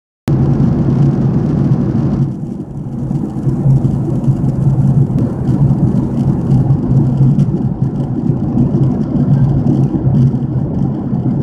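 Airliner cabin noise in flight, heard at a window seat: a steady, loud roar of jet engines and rushing air with a low, even hum underneath.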